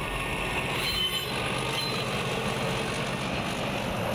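Diesel locomotive running steadily on the track, its engine noise even throughout.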